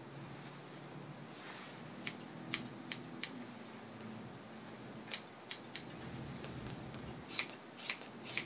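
Grooming shears snipping through a dog's thick coat: short crisp snips in small groups, about four some two seconds in, three around five seconds, and a quicker run of snips near the end.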